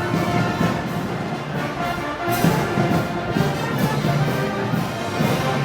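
A live brass band playing festival music, with held brass notes over a steady beat.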